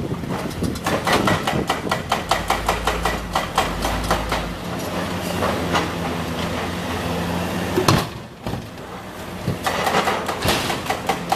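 Komatsu PC200 excavator's diesel engine running under a rapid clatter of knocks, several a second. About two-thirds of the way through there is one sharper knock, the clatter stops for a second or so, then it starts again.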